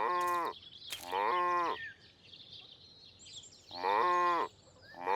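Sheep bleating, three calls with a fourth starting at the very end, each call about two-thirds of a second long.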